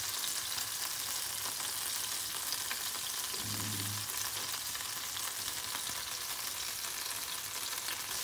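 Hot oil in a nonstick frying pan sizzling steadily with fine crackling pops as salmon pieces fry in it.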